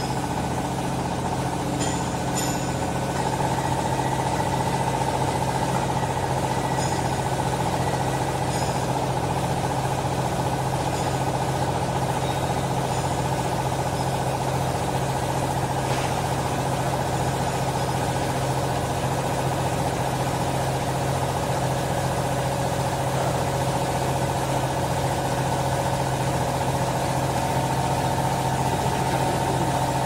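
Vertical hydraulic cloth baler's electric motor and hydraulic pump running steadily with a hum, a higher whine joining about three seconds in, and a few faint clicks.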